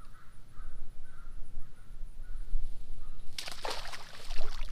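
Crows cawing faintly, over and over. About three and a half seconds in comes a short, loud rustling thrash as a catfish is shaken loose from a mesh landing net and drops into the grass.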